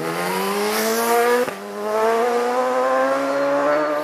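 Racing motorcycle engine accelerating hard, its pitch climbing, with a quick upshift about a second and a half in, then climbing again before the sound cuts off suddenly at the end.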